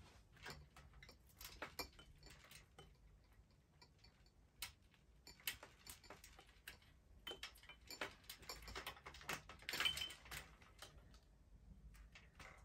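Light, irregular metal clicks and small rattles of a clip and hook being hung on a wire grid wall panel, loudest about ten seconds in.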